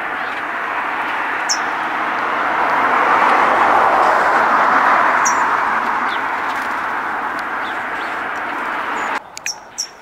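A steady rushing noise that swells in the middle and cuts off abruptly near the end, with a few short, high bird chirps over it. After the cut the background is quieter, with several more quick chirps.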